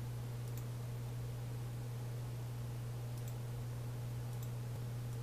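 Steady low hum with a few faint computer mouse clicks.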